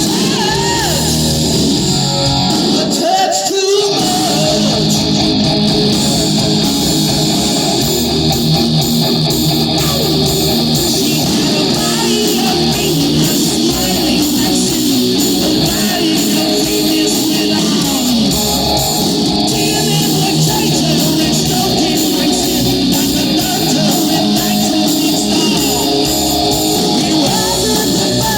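Rock band playing: electric guitar with singing, loud and steady, the bass briefly dropping out about three seconds in.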